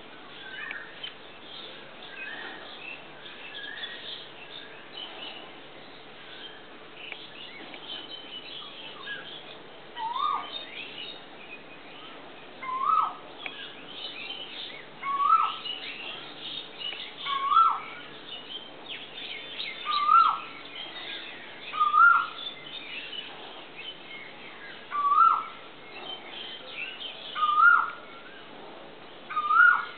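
Male Asian koel calling. Its short rising call comes in about ten seconds and repeats roughly every two and a half seconds, nine times, getting louder over the first few. Other small birds chirp behind it.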